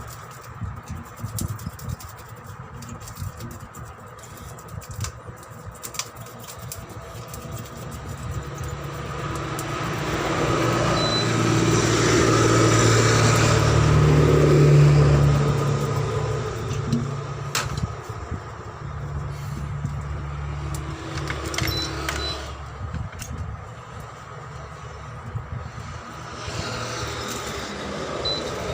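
A motor vehicle's engine passing by, getting louder for several seconds mid-way and then fading, over a steady low engine hum, with a few scattered clicks and taps.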